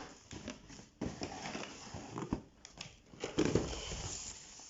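Cardboard box and paper packaging being handled: irregular rustling and crinkling with a few sharp knocks.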